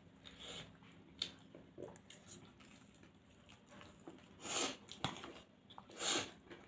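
Close-up eating sounds from people eating spicy noodles and poori: soft wet chewing and small mouth clicks, with two louder, longer noisy mouth sounds about four and a half and six seconds in.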